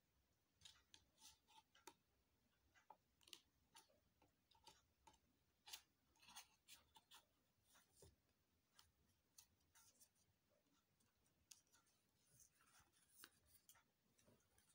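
Faint scrapes and clicks of a compact disc and its black cardboard sleeve being handled, as the disc is slid back into the sleeve's slot and the packaging is set down.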